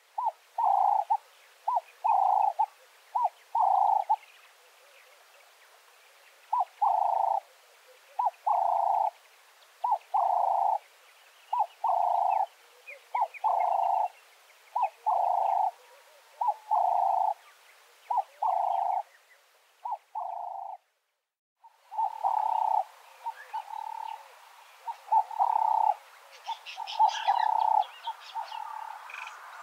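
Ring-necked doves (Cape turtle doves) cooing: short, even, low notes repeated in quick groups of two or three, with brief pauses between groups. Faint high chirps of small birds join near the end.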